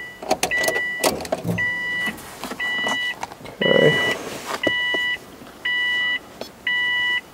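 Car's dashboard warning chime beeping about once a second, each beep about half a second long, eight times, with a few handling clicks and a brief rustle about four seconds in.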